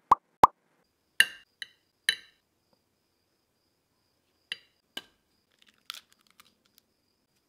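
Close-up kitchen preparation sounds. Sharp clicks and glassy clinks come from a small glass jar with a wooden lid over the first two seconds. Later there are two short squirts from a squeezed sauce bottle, and an egg cracks near the end.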